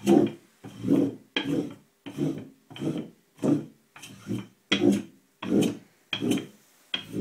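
Knobbed wooden pricking rolling pin rolled back and forth over thin, floured flatbread dough on a wooden board: a rhythmic rubbing rumble, about three strokes every two seconds, as the dough is pricked before baking.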